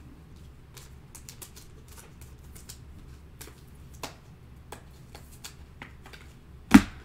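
Trading cards being handled: faint, irregular ticking and clicking of cards sliding and tapping against each other, with one sharper, louder click near the end.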